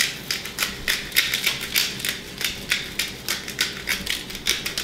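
Hand salt grinder being twisted, cracking Himalayan pink salt crystals: a rapid, even run of clicks at about five or six a second.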